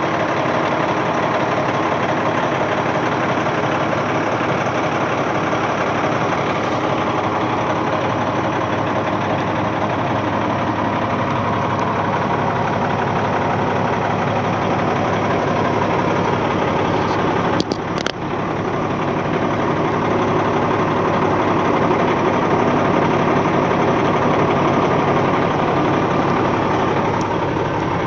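Cummins C6TA turbocharged inline-six diesel of a 1995 Kenworth van truck idling steadily, heard from inside the cab. A couple of sharp clicks about two-thirds of the way in.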